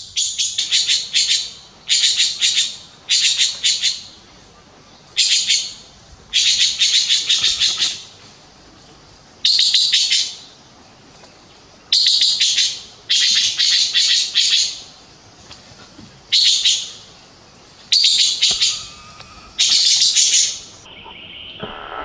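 Blue magpie giving harsh, rattling scolding calls over and over, each burst about a second long and one every second or two. These are alarm calls mobbing Himalayan langurs that have entered its territory.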